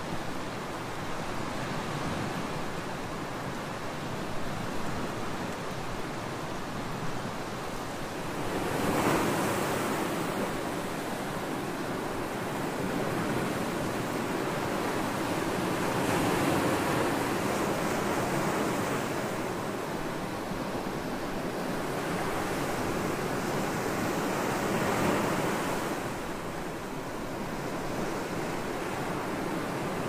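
Ocean surf breaking and washing up a sandy shore: a continuous rushing wash that swells louder as waves break, about nine seconds in, again around sixteen to nineteen seconds, and around twenty-four seconds.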